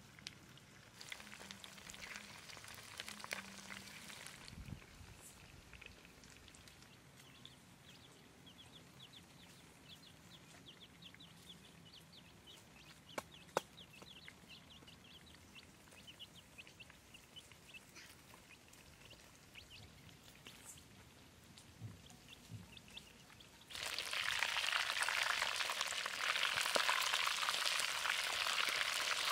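Baby chicks peeping in quick, short, high cheeps for several seconds. Near the end, fish and eggs hit hot oil in a wok and a loud sizzle starts suddenly and keeps going.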